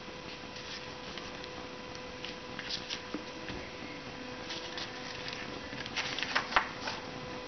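Paper being handled on a tabletop: soft scattered rustles and taps, growing into a louder cluster of paper rustling about six seconds in as the sheet is lifted. A faint steady tone runs underneath.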